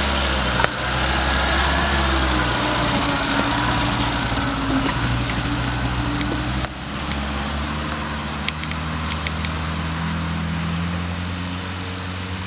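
Suzuki SJ off-roader's engine running at low, fairly steady revs as it crawls down a steep dirt slope, with a few sharp clicks and knocks.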